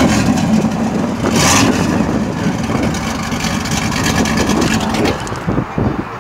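1986 Camaro IROC-Z's built 383 small-block V8 with a Holley four-barrel carburetor, running loud at idle through headers with the exhaust cut off right behind them, so it is essentially open-header. It blips briefly on the throttle about a second and a half in, then settles back to idle.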